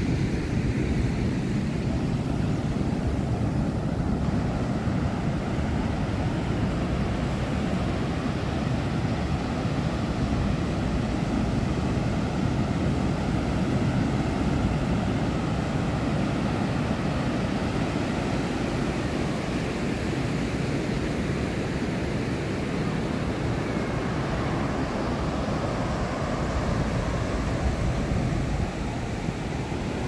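Ocean surf breaking and washing on a sand beach, mixed with wind buffeting the microphone: a steady, even rush with no distinct events.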